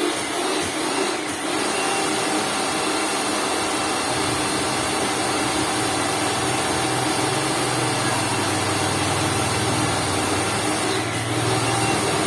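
Lakoni Laguna 70 electric pressure washer switching on suddenly and running steadily.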